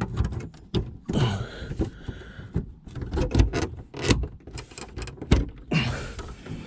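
Plastic tailgate trim panel being pushed and knocked into place: a run of irregular knocks and clicks as its clips seat, with plastic scraping and rubbing about a second in and again near the end.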